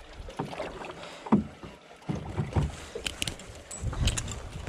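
Small fishing boat at sea: water moving against the hull with low rumbling, and scattered knocks and clicks of gear on board, the clicks coming thicker from about three seconds in.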